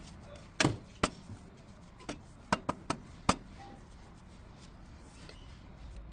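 A series of about seven sharp knocks and clacks, spread irregularly over the first three and a half seconds, then a quieter stretch with only faint background noise.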